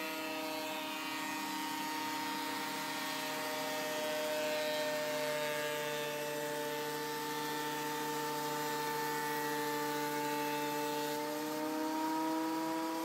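Bauer benchtop thickness planer running with a steady motor whine as a board feeds through it. The pitch sags slightly while the blades cut and rises again near the end as the board clears the cutterhead.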